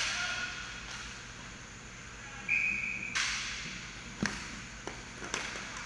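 Inline hockey play on a rink: sharp clacks and knocks of sticks and puck. About halfway through there is a short high steady tone, then a sudden burst of noise that fades over a second. A single hard knock follows a little later.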